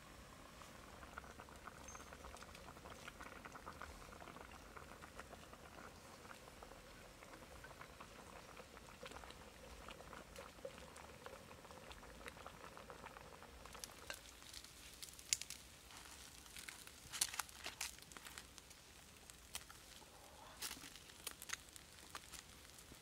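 A pan of fish soup simmering, its broth bubbling faintly and steadily. In the second half this gives way to scattered sharp clicks and knocks.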